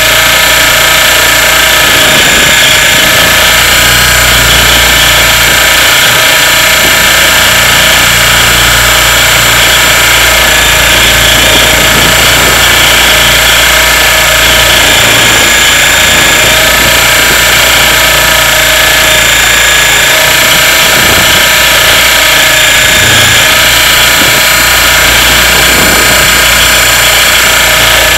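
Radio-controlled helicopter's motor and rotors running steadily as heard from a camera on board: a loud, buzzing whine whose pitch wavers slightly as it flies.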